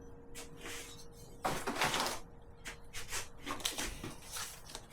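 Parts of a table saw being handled during assembly: a series of short knocks and clatters, the loudest about one and a half to two seconds in.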